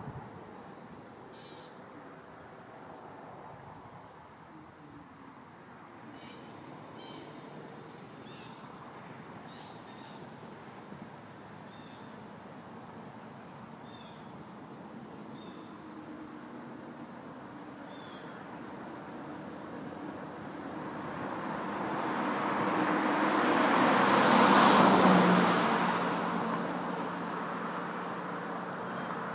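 Insects, likely crickets, chirping steadily in a high, even pulse, with a few short higher chirps scattered through. A vehicle passes on the road, growing louder from about two-thirds of the way in, loudest near the end, then fading.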